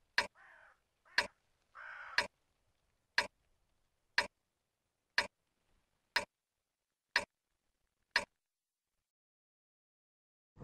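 Film-leader countdown sound effect: a sharp tick once a second, nine ticks in all, one for each number counting down. Two soft swishes come in the first two seconds.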